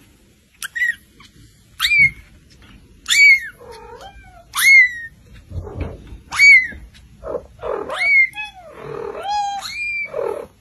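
A cat meowing: about eight short, high-pitched meows, each rising sharply and then falling, roughly one a second. Lower, longer meows join in from about four seconds in.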